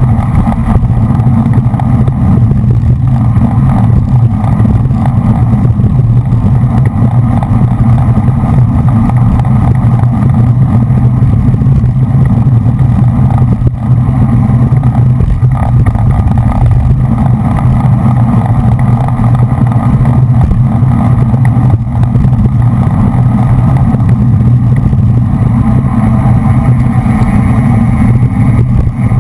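Steady, loud roar of wind buffeting and tyre rumble on a GoPro mounted on a road racing bicycle moving at race speed, with no breaks.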